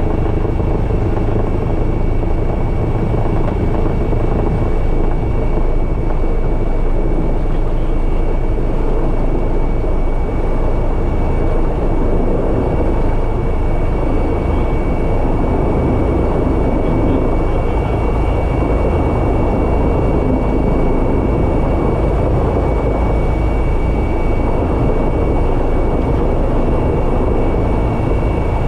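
Airbus EC135 twin-turbine helicopter heard from inside the cockpit, running steadily as it slows into a hover to land: a dense rotor beat with a constant high-pitched turbine whine above it.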